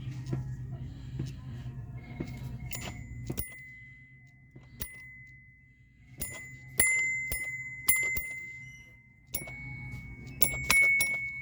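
A small metal bell struck again and again at an uneven pace, each ding ringing on with a clear high tone. The strikes come faster toward the end. A low hum stops about three and a half seconds in.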